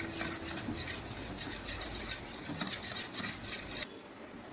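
Metal spoon stirring and scraping around a stainless steel bowl of water and dishwashing liquid, mixing bubble solution, in a quick run of rasping strokes that stops abruptly near the end.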